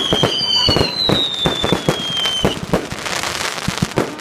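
Fireworks display going off: a rapid, dense run of bangs and crackles, with two whistling fireworks falling slowly in pitch during the first couple of seconds.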